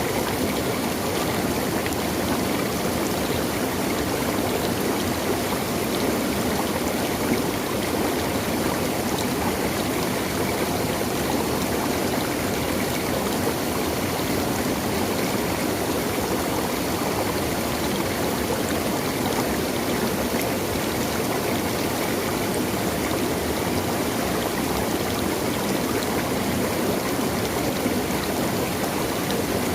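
Running water in nature flowing steadily: an even, continuous rush with no breaks.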